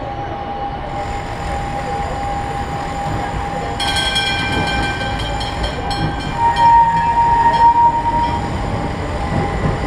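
Vintage electric streetcar rumbling closer along its rails, growing louder as it comes. From about four seconds in, high steady squealing tones join as it rounds the curve at the junction, and they are loudest for a couple of seconds near the end.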